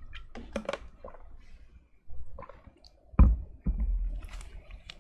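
Someone drinking water at the desk: small clicks and liquid sounds, then a heavy thump about three seconds in, followed by a second of rumbling handling noise.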